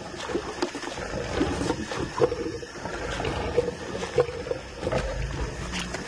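Lions feeding on a buffalo carcass, snarling at one another, with many short sharp cracks and clicks of tearing and chewing.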